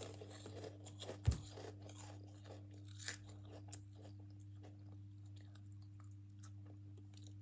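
A child chewing crunchy snack food with small, irregular crunches, over a low steady hum. A single thump about a second and a half in is the loudest sound.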